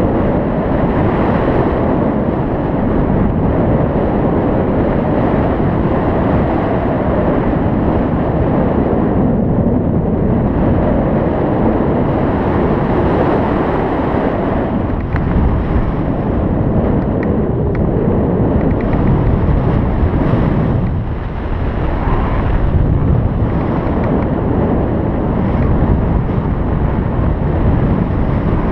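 Wind buffeting the microphone during a paragliding flight: a loud, steady rushing rumble with no engine tone, easing briefly about two-thirds of the way through.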